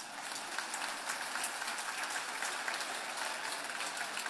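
Audience applause: many hands clapping at a steady level.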